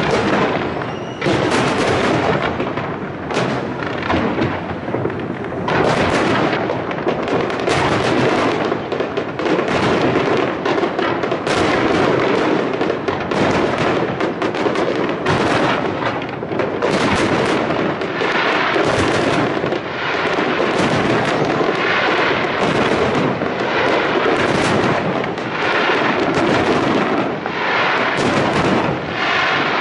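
Aerial fireworks shells bursting in rapid, overlapping succession: a dense, continuous barrage of booms and bangs, with a crackling fizz from crackle stars joining in from about two-thirds of the way through.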